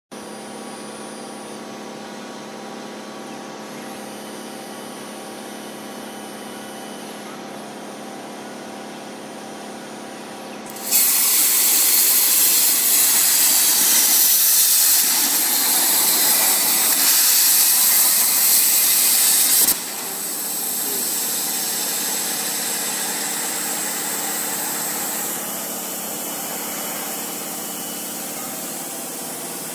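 OMNI 1215 CNC plasma table humming steadily, then the plasma arc fires about eleven seconds in with a loud, sharp hiss as the torch cuts a hole in steel sheet. The hiss stops suddenly after about nine seconds, and a softer steady air hiss follows, dropping a step in level near the end.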